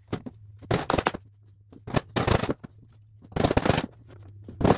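Hammer driving small nails into the joints of a wooden beehive frame: four quick runs of sharp taps, each lasting a fraction of a second, about a second apart.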